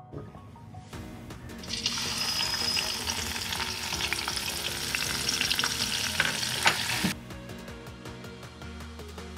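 Onion paste sizzling in hot oil in a metal kadai as it goes in, with a steel ladle clicking and scraping against the pan while stirring. The sizzle starts a couple of seconds in and cuts off abruptly about seven seconds in, with soft background music underneath.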